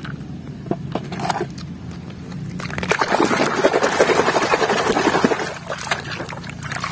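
A few light knocks, then, from about two and a half seconds in, splashing and sloshing as a hand swishes a small plastic toy dump truck back and forth through shallow muddy water to wash it.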